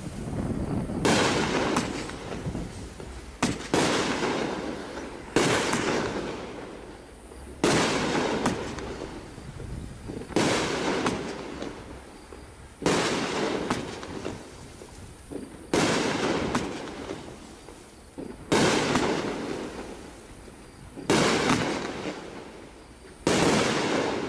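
A T-Sky Stellar Delight 12-shot 500-gram consumer fireworks cake firing, one shot every two to three seconds. Each shot is a sharp bang that trails off into a crackle lasting a second or two as the stars break.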